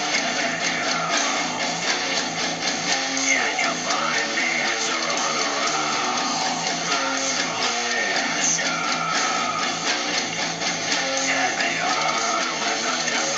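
An Ibanez electric guitar played through a small Ibanez practice amp, strumming a continuous chord riff with changing chords and no pauses, picked up by a phone's microphone.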